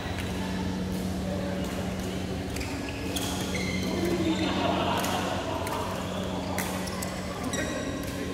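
Badminton rally in a large hall: a few sharp racket hits on the shuttlecock and short squeaks of shoes on the court floor, over a steady low hum.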